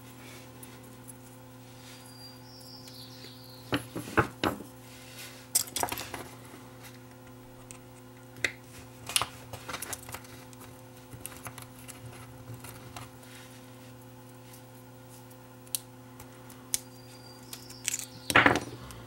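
A thin metal RF shield can being pried and worked off a small circuit board with a pick tool: scattered clicks, scrapes and small metallic snaps, with two brief high squeaks. The loudest cluster comes near the end. A steady low hum runs underneath.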